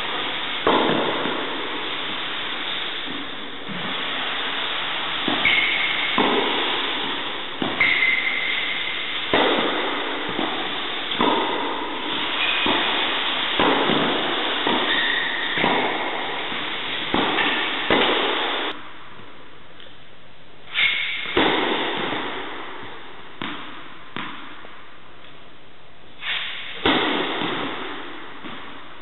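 Tennis ball struck by racket and bouncing on an indoor hard court during a rally: sharp hits every second or so, each echoing in the hall, with a brief lull about two-thirds through. A few short high squeaks of shoes on the court come in between.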